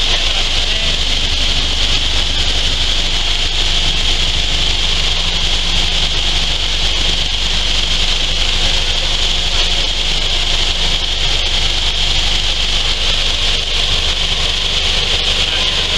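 Coffee-bean sorting sieve machine running, its wire-mesh screens shaking green coffee beans to sort them by size. It makes a steady, unbroken machine noise, a low hum with a high hiss on top.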